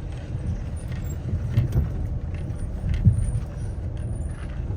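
Car running, heard from inside: a steady low rumble of engine and road noise, with a couple of knocks from bumps, about a second and a half and three seconds in.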